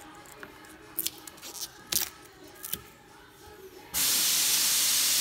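A fingernail picks at the edge of a peelable liquid spray wrap on a car door, giving a few faint clicks and scratches. About four seconds in, the film is pulled away from the panel with a sudden loud, steady tearing hiss.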